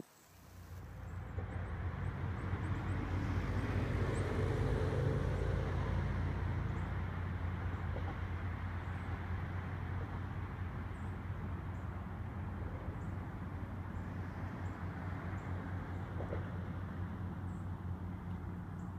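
A vehicle engine running steadily, a low hum that builds over the first couple of seconds and then holds.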